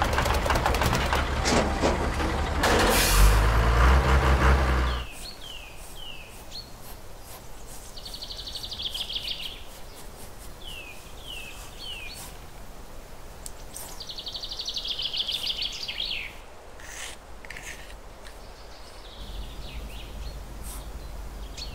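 A loud rumbling, rushing noise for about the first five seconds as a toy dump truck tips out its load of soil. Then birds chirp and trill, with a few small taps and scrapes as a tiny tool works the soil.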